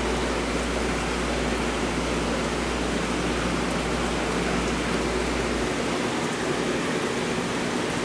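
Water circulating in a seawater aquarium tank: a steady rushing hiss, with a low hum beneath it that cuts out near the end.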